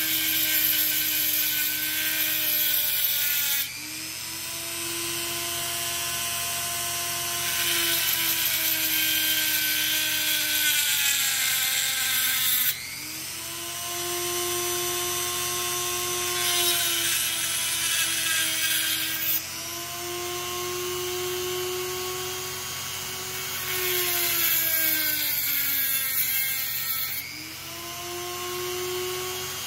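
Dremel rotary tool with a diamond cutting wheel running continuously and grinding through a wet coral skeleton, its high whine sagging and recovering in pitch as the wheel is loaded by the cut. The gritty cutting hiss drops away abruptly about four times as the wheel eases off the coral, while the motor keeps running.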